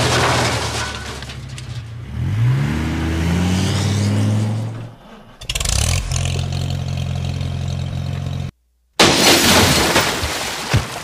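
Vehicle engine running with a low steady hum, revving up in pitch between about two and four seconds in. Water splashes as mud tips into a puddle at the start, and a loud splash comes near the end after the sound cuts out for a moment.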